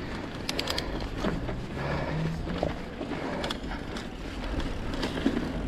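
Mountain bike riding over a dirt trail: steady tyre and drivetrain noise with rattling, and a few sharp clicks near the start and again about three and a half seconds in.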